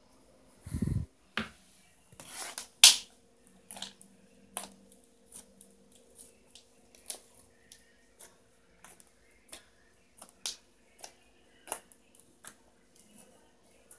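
Slime popping and clicking as fingers press and poke it on a plastic racket grid: a run of short sharp pops, about one or two a second, the loudest about three seconds in. A dull thump comes about a second in.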